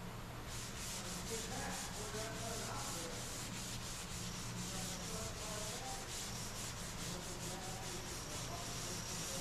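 Body filler (Bondo) on a car's rear quarter panel being hand-sanded with a sanding block: a quick, even run of back-and-forth rasping strokes that starts about half a second in.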